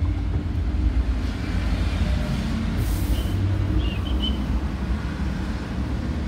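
A steady low rumble, with a few short, light clinks about halfway through as glass wine bottles are set into a melamine-board wine rack.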